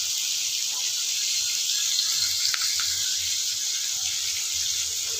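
Sliced bitter gourd and onions frying in oil in a pan, a steady sizzle as the karela cooks down toward done.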